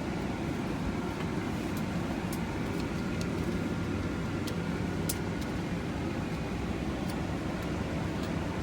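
Steady low hum of an airliner cabin: air conditioning and aircraft systems running evenly, with a few faint clicks.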